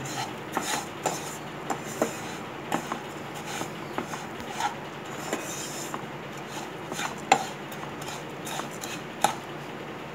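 Flat metal spatula scraping and tapping against a nonstick kadhai while stirring a dry mix of roasted beaten-rice flakes and peanuts: irregular scrapes and clicks about once or twice a second, with two sharper knocks in the second half.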